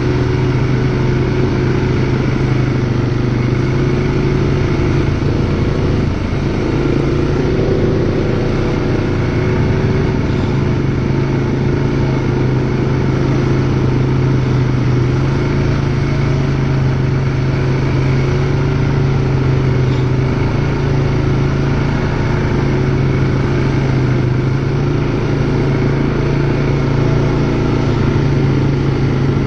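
ATV engine running steadily at low cruising speed, its pitch holding nearly level with small shifts in the throttle.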